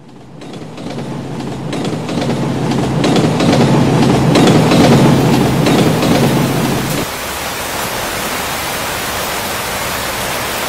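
Rain and thunder sound effect: a low thunder rumble with crackles swells over the first few seconds and cuts off about seven seconds in, leaving a steady hiss of heavy rain.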